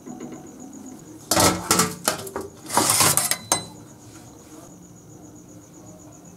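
Stainless steel tiffin box and plate clattering as they are handled and set down, in two bursts of metal-on-metal knocks and clinks about a second and a half in and about three seconds in.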